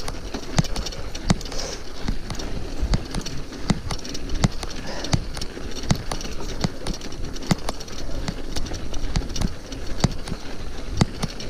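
Mountain bike rolling along a snowy dirt trail: steady tyre and wind noise with sharp clicks from the bike repeating fairly evenly, a little more than once a second.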